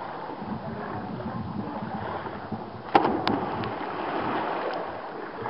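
A person jumping from a pool starting block and hitting the water flat about three seconds in: one sharp slap, then splashing spray. The landing is a painful one. Before it, a steady wash of water noise.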